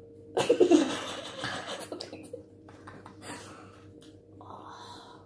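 Breathy wordless vocal reactions to sour lemon: a loud hissing exhale with laughter starting about half a second in, followed by softer breaths.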